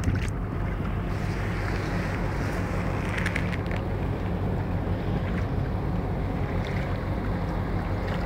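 Wind buffeting the microphone and water sloshing around a kayak under way, over a steady low hum that is typical of the kayak's electric trolling motor.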